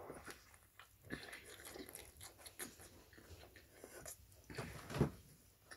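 Close-up eating sounds of a person biting into and chewing a sandwich: irregular mouth clicks and smacks, with a louder thump near the end.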